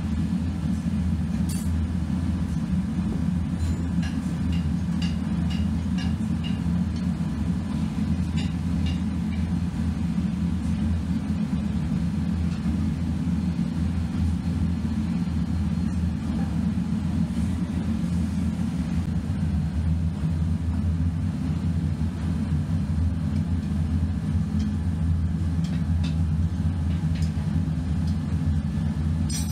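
Steady low rumble of a running machine, with a few faint small clicks and scrapes of a hand tool against the sand mold.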